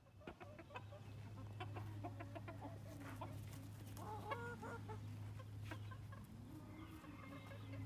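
Chickens clucking in a run of short calls, with a longer drawn-out call about four seconds in, over a steady low hum.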